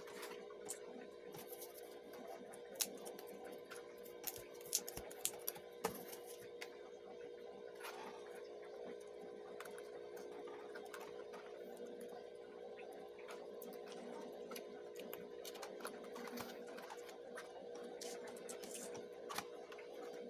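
Stiff paperboard puzzle pieces being handled and slotted together: light taps, scrapes and clicks, with a cluster of sharper clicks about four to six seconds in, over a steady hum.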